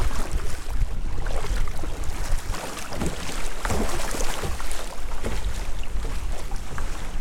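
Kayak being paddled through choppy water: the paddle blades splash with each stroke and water washes along the hull. Gusty wind rumbles on the microphone throughout.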